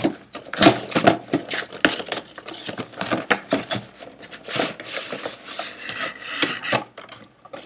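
Cardboard toy box being torn open by hand, with the clear plastic packaging tray crackling and scraping as it is pulled out.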